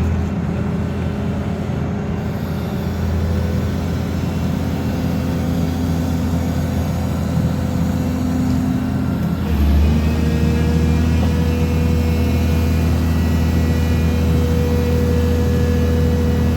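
Excavator engine and hydraulic vibratory pile driver running steadily, stepping up to a louder, deeper hum about halfway through.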